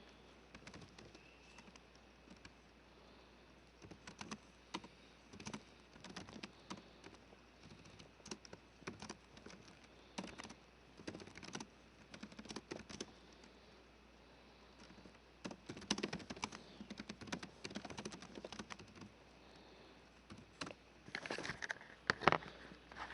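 Faint typing on a computer keyboard: irregular runs of key clicks with short pauses between them, busiest near the end.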